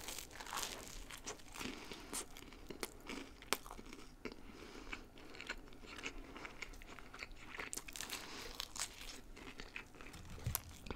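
A person chewing toasted bread close to the microphone: irregular crisp crunches and mouth sounds.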